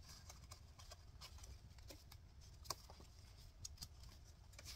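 Quiet handling of a spiral-bound paper booklet as its pages are turned, with a few faint light clicks and ticks, one a little sharper near the middle.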